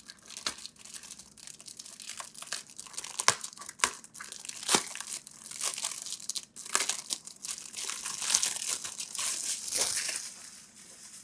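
Plastic packaging bag crinkling and crackling as it is handled and slid off a monitor sun hood. A dense run of sharp crackles that thickens about halfway through and dies away near the end.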